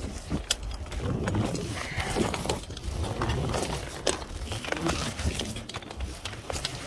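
Metal climbing hardware clicking and clinking against a steel lattice tower during a descent, at irregular moments, over a low rumble of wind buffeting the microphone.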